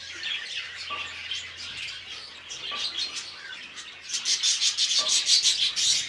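Budgerigars chattering: a dense run of quick high chirps that grows louder about four seconds in.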